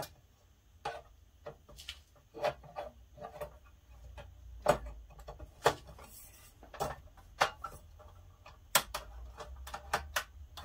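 Irregular clicks and light knocks, a dozen or more, from hands working the work-light stand's upright pole and its fittings.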